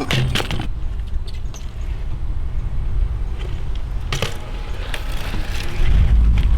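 BMX bike being ridden on park ramps: a steady rumble of tyres rolling, with sharp knocks at the start and again about four seconds in.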